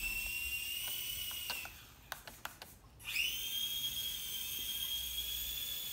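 Small electric motor of a balsa RC model plane whining steadily as it spins the propeller during ground taxiing. The whine stops just before two seconds in, a few sharp ticks follow, and about three seconds in it spins up again and holds at a slightly higher pitch.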